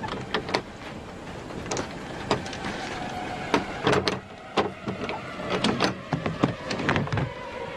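A large shipping crate being worked open by hand: an irregular run of sharp clicks, snaps and knocks from its latches and lid.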